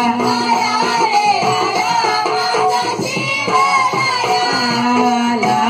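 Live Marathi folk song with singing over a held instrumental note and hand-drum beats.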